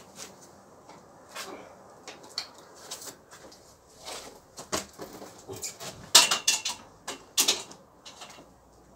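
A hanging punching bag being unhooked from its ceiling chain and set down on a concrete floor: scattered clicks, rattles and knocks, the loudest bunch about six seconds in and another at about seven and a half.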